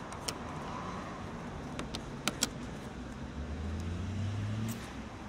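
Light clicks and taps of plastic and wiring connectors being handled and pushed into a motorcycle fairing, a few single ticks with a quick double click about halfway through. Under them a steady low outdoor rumble, with an engine hum swelling for about a second near the end.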